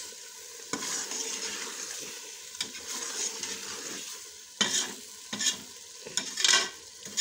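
Potato and capsicum masala sizzling in oil in a pressure cooker pot while a spoon stirs it, with several scrapes of the spoon against the pot, louder in the second half. This is the bhunai stage, frying the masala down until it stops sticking to the spoon.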